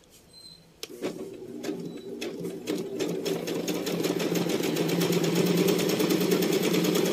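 Pandora House electric household sewing machine stitching a decorative stitch pattern. It starts about a second in with single needle strokes that speed up over the next few seconds into a steady, rapid run.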